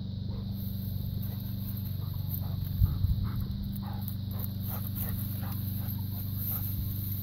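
Chocolate Labrador retriever making a string of short, soft sounds, a few a second, while it noses through tall grass, over a steady low hum. Two thumps come about three seconds in.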